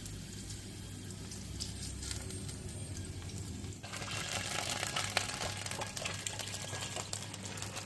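Hot garlic oil (refrito) poured from a pan onto a grilled sea bass. It sizzles and crackles from about four seconds in, as the oil reaches the fish.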